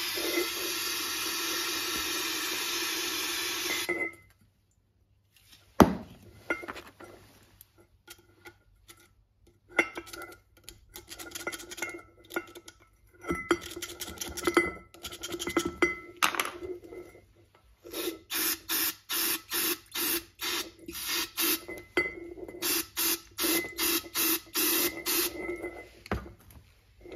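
Aerosol brake cleaner spraying through a ratchet head into a glass jar: a steady hiss for about four seconds, then, after a short pause and a click, a long run of short hissing bursts, two to three a second near the end.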